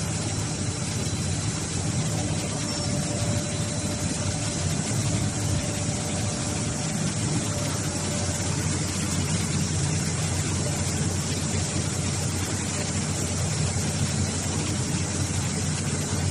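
Hydraulic baler's power unit, its electric motor and hydraulic pump, running with a steady, even machine hum.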